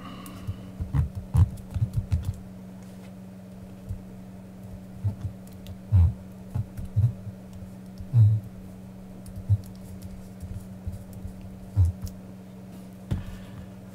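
Handling noise: scattered light taps and knocks as a foam pad is pressed onto a lithium-ion battery pack and the opened plastic air duster housing is moved about on a work mat, over a steady low hum.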